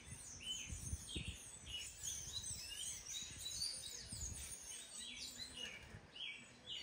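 Many small birds chirping together: a dense chorus of short, quick chirps, many of them falling in pitch, over a low uneven rumble.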